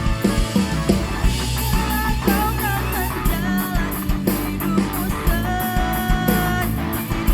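A live band plays a pop-rock song with drums, bass and guitar. A lead melody line bends in pitch, then holds one long note about five and a half seconds in.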